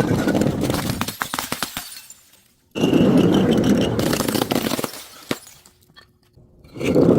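Glass being crushed and breaking, a dense crunching and cracking in long stretches of two to three seconds with short quiet gaps between them.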